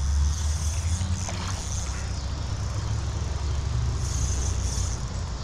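A steady low rumble on the microphone, with a brief higher hiss about four seconds in.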